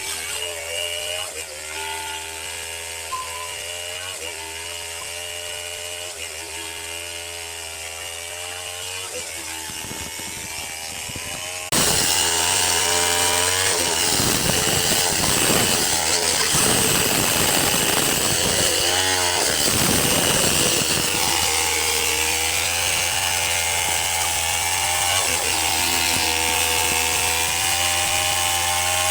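Chainsaw running and cutting into wood, its engine note wavering under the noise of the cut. The sound jumps abruptly to a louder, harsher cutting about twelve seconds in, then eases back toward a steadier running note near the end.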